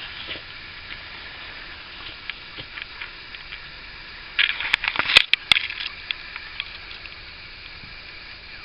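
Light clicks and taps of hand tools against the window glass and frame while the glass is being puttied in, with a short burst of sharp clicks and knocks about halfway through. A steady hiss lies under it.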